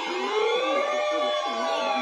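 Electronic alert siren tones, several pitches sliding up and down across one another over a low warble, joined about half a second in by a steady tone near 1 kHz.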